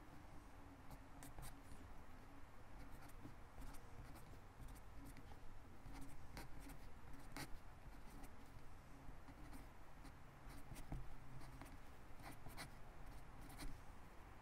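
A fine-tipped pen writing cursive on lined notebook paper: quiet scratching of the pen strokes, with many short ticks spaced unevenly as the letters are formed.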